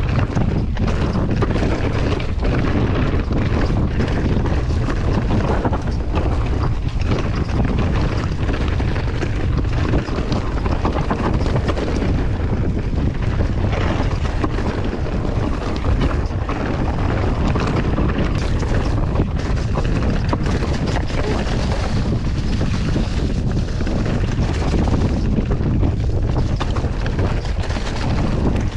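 Wind buffeting the microphone of a camera riding along on a mountain bike descending a dirt trail, over a steady low rumble of tyres rolling, with frequent small knocks and rattles from bumps.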